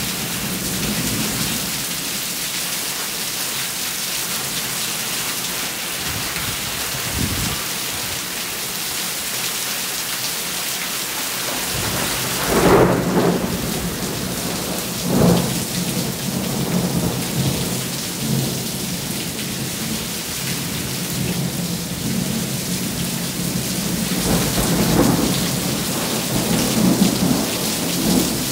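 Steady rain falling through a thunderstorm, with thunder rumbling several times. The loudest rolls come about halfway through, and more rumbles follow near the end.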